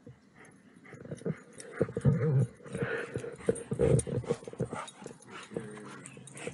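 Chesapeake Bay retriever making low growls and whines, mixed with scattered short clicks and knocks.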